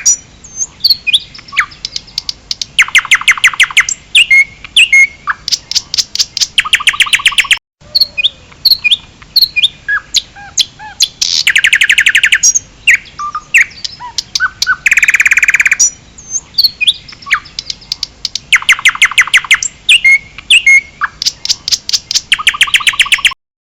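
A bird singing: loud, rapid trills about a second long repeat every few seconds, with short chirps and whistles between them. The song cuts off abruptly just before the end.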